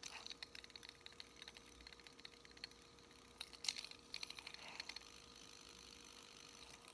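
Light-up LED fidget spinner spun by hand, giving faint, rapid ticking, with a few sharper clicks a little past halfway.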